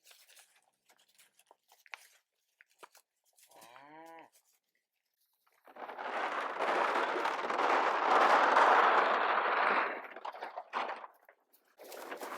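A Black Angus cow moos once, a short call about four seconds in. A couple of seconds later a loud rushing noise starts, lasts about four seconds and is the loudest sound here.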